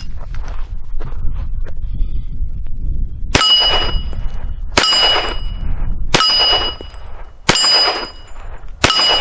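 Five shots from a Hi-Point .45 ACP pistol, about a second and a half apart, each followed by the ringing of a steel plate target being hit.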